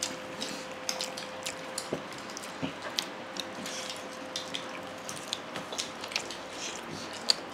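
Eating sounds at close range: scattered small clicks and smacks of chewing and handling food, with a faint steady hum for the first five seconds.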